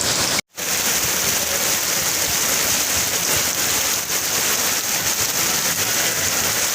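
Heavy rain pouring down in a steady hiss. The sound drops out for an instant about half a second in.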